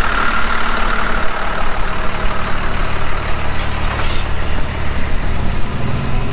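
Old tow truck's engine idling steadily, its note stepping up a little near the end.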